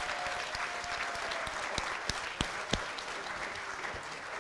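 Audience applauding: a steady round of many hands clapping, easing off a little near the end.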